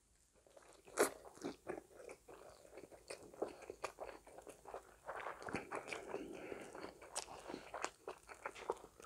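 Close-miked chewing of a mouthful of Korean rice burger (pressed rice bun, barbecue patty and lettuce): a steady run of short, sharp clicks and wet mouth sounds, the loudest about a second in.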